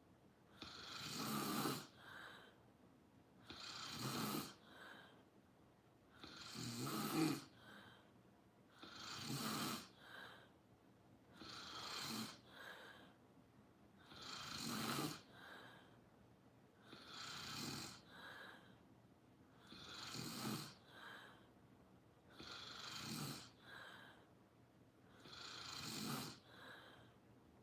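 A sleeping person snoring steadily, with a loud snore about every two and a half to three seconds, each followed by a short, softer breath.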